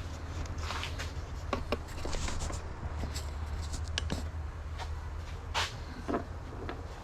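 Workbench handling noises: scattered sharp clicks and knocks of tools and parts being picked up and set down, over a steady low hum.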